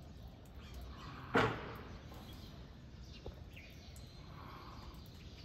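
Outdoor ambience with a low steady rumble and faint bird chirps. A single sharp knock about a second and a half in stands out as the loudest sound, and a smaller click follows near the middle.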